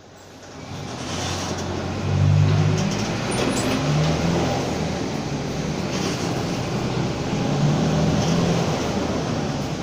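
Mercedes-Benz OF-1722M bus's diesel engine running under way, fading in over the first second and changing pitch as it pulls, loudest about two seconds in, with the driveshaft growl ('cardã roncando') heard in second gear.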